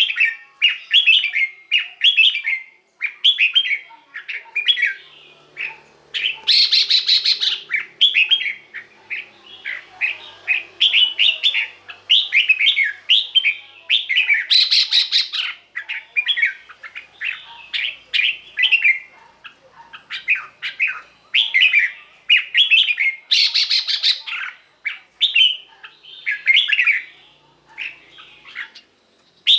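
Red-whiskered bulbul singing a steady run of short, quick whistled phrases. Three times, at about 7, 15 and 24 seconds, a louder, harsher rapid rattling burst cuts in.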